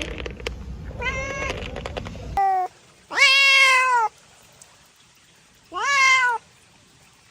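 Domestic cat meowing four times: a short meow, a brief one, a longer meow that falls a little at the end, and a rising meow. The meows are spliced from separate recordings, and background hiss cuts off abruptly after the first.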